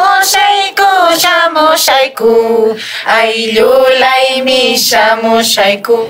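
A female voice singing a traditional Andean folk song in long, held, wavering notes, each phrase lasting about a second or more.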